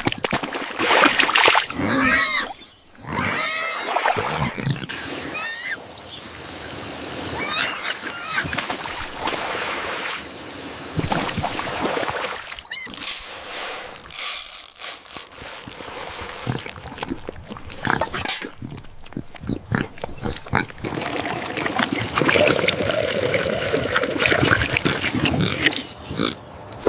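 Assorted animal calls, one after another, with rising and falling pitch.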